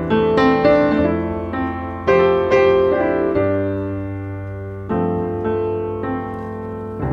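Background piano music, with notes and chords struck every second or so and left to ring and fade.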